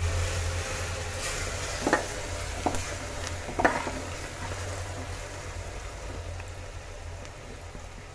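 Spice masala sizzling as it fries in an open pressure cooker pot and is stirred with a metal ladle. The ladle knocks against the pot three times, about two, three and four seconds in, and the sizzle slowly dies down.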